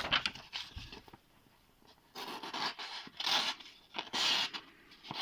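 Small folding knife blade cutting with several rasping strokes, each about half a second, starting about two seconds in.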